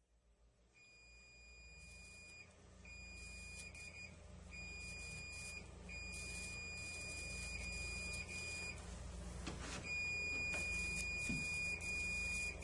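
Electrocautery unit's steady high activation tone, sounding in five stretches of one to three seconds with short gaps, as the pen cauterizes the scraped base of a skin lesion dry. A faint low hum runs beneath.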